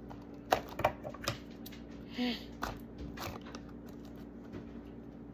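Fingers handling and picking at a small cardboard toy box: a few light clicks and taps in the first three seconds or so, with a short hum from a voice about two seconds in.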